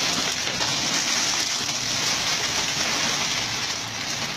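Plastic snack wrappers and chip bags crinkling and rustling steadily as a mesh bag full of packaged snacks is tipped out and the packages tumble onto the pile.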